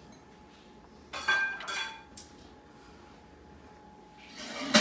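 Kitchen clatter: dishes and utensils clinking and knocking on a countertop. A few separate clinks with a short ring come about a second in, and a louder clank comes near the end.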